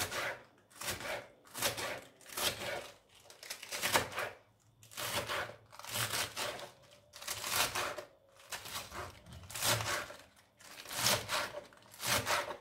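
Kitchen knife chopping fresh spinach on a plastic cutting board: a steady run of crisp cuts through the leaves and stems, about one to two a second.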